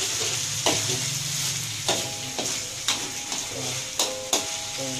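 Diced chicken sizzling in oil in a metal wok while a metal spatula stir-fries it. The spatula strikes and scrapes the wok about five times, each with a short metallic clank and ring.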